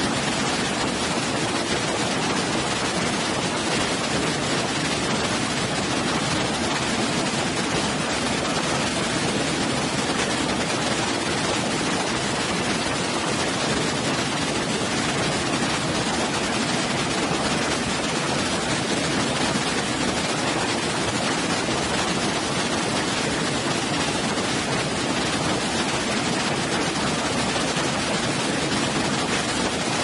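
A waterfall and the cascades below it: water falling and rushing over rocks in a steady, even rush with no breaks.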